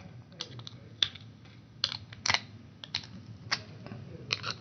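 Pliers snapping the memory chips off a RAM module's circuit board: a series of irregular sharp clicks, roughly two a second.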